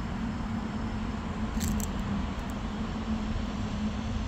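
Steady low mechanical hum of outdoor background noise, with a few faint high ticks about one and a half seconds in.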